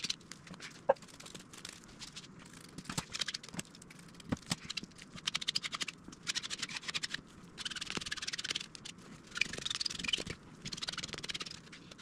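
Gloved hands and a plastic spreader card rubbing and scraping over peel ply fabric laid on wet epoxy and fiberglass. The sound comes as a series of separate strokes about a second long, with a light click about a second in.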